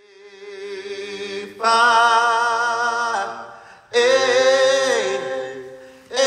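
A cappella vocal singing in long held notes. It fades in at first, with new phrases entering sharply about a second and a half in and again about four seconds in.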